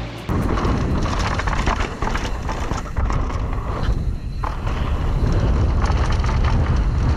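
Mountain bike descending a dirt trail, heard from a camera on the rider: steady rumble of tyres over the ground and wind on the microphone, with a rattle of clicks and knocks from the bike over bumps. It starts suddenly about a third of a second in.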